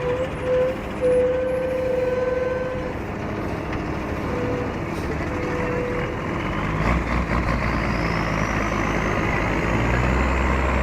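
Heavy logging truck's diesel engine running, with a steady held tone sounding on and off in the first few seconds. About seven seconds in, the engine grows louder and deeper and a high whine rises slowly.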